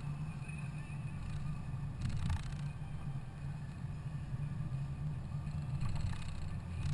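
Steady low rumble of a BMW driving on the road, heard from inside the cabin: engine and tyre noise at cruising speed.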